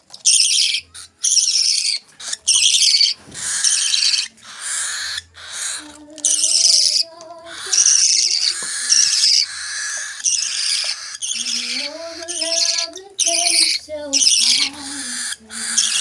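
Hand-fed cockatiel and parakeet chicks begging: a rapid series of harsh, raspy, high calls, each lasting under a second with short breaks between, as they are being fed.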